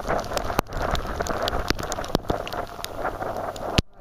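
Hurricane-force wind buffeting the microphone with driving rain, a dense rough rush with low rumble, broken by many sharp clicks scattered throughout.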